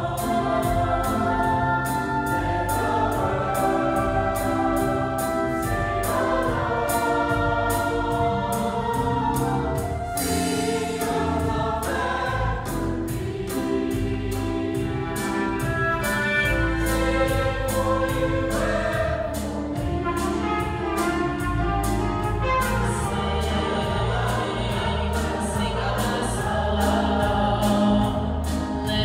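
Church choir singing an upbeat hymn with instrumental accompaniment and a steady beat.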